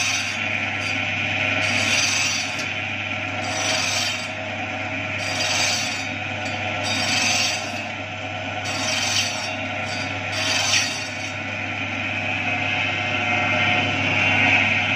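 Electric chicken cutting machine running with a steady motor hum while its blade chops a wooden dowel, a rasping cut about every second and a half to two seconds for the first ten or so seconds, then the motor runs on alone.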